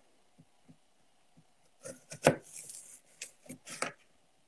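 Knife cutting apple on a cutting board: a quick run of short knocks starting about two seconds in and stopping near the end, the loudest one early in the run.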